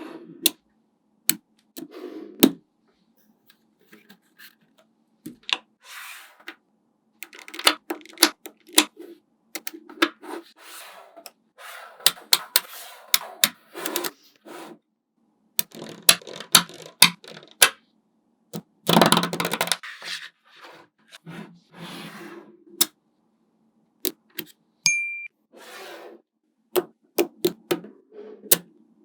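Small magnetic balls clicking and snapping together as they are set in place one at a time, with short rattles as they roll against each other. About two-thirds of the way through, a louder, longer clatter of many balls.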